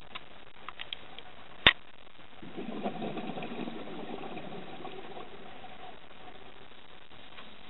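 Underwater: a few sharp clicks, the loudest about a second and a half in, then a scuba diver's exhaled breath bubbling out of the regulator, strongest at first and fading out over about three seconds.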